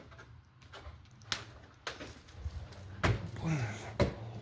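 A few sharp knocks and clunks, the two loudest about three and four seconds in, with a low voice murmuring between them.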